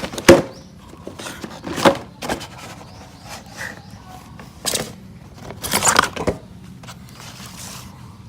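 A few irregular knocks and rattles of hand tools and metal parts being handled while fitting a car horn. The loudest knock comes just after the start, with a tight cluster of rattles about six seconds in.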